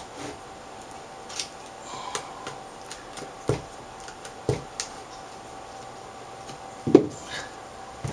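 LCD backlight panel being handled and shifted on a work mat: scattered light clicks and taps of its plastic sheet and metal-edged frame, with the loudest knock about seven seconds in.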